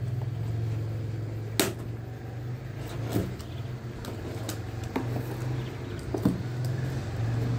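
Scissors cutting and snipping at a cardboard box: a handful of sharp clicks, the loudest about a second and a half in, over a steady low hum.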